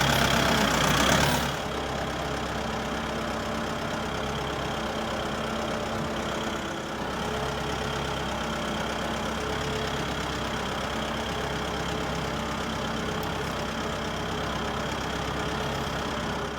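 Tractor engine running, louder for the first second and a half, then dropping back to a steady idle.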